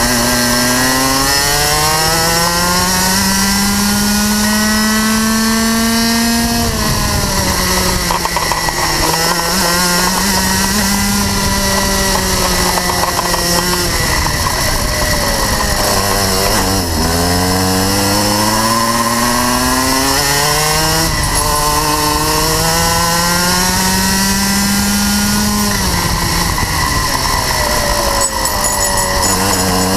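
Rotax Max 125 cc single-cylinder two-stroke kart engine at full throttle, heard from on board: its pitch climbs steadily for several seconds along the straights and falls sharply when the driver lifts for a corner, three times over, with no gear changes.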